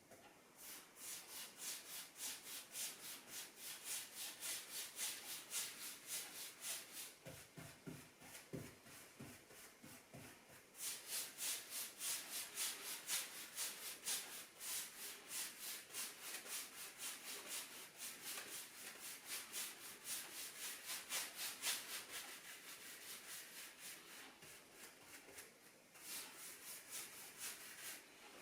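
Stain being worked into a wooden tabletop in quick back-and-forth rubbing strokes, a faint rhythmic hiss of several strokes a second that grows louder about a third of the way in.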